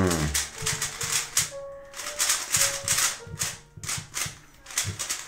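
Layers of a plastic Shengshou Gem 3x3 speed cube being turned by hand, clicking and clacking in quick irregular runs. Faint music plays in the background.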